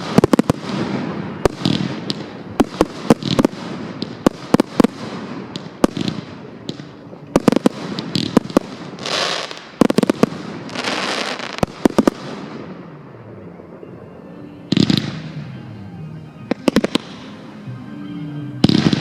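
Fireworks display at close range: a rapid run of sharp bangs from bursting shells, mixed with longer hissing, crackling bursts. The firing thins out for a few seconds about two thirds of the way through, then picks up again with more bursts.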